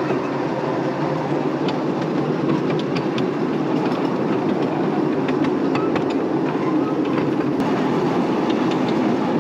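Miniature ride-on train rolling along its small-gauge track, heard from the carriage: a steady rumble of the wheels on the rails with scattered light clicks.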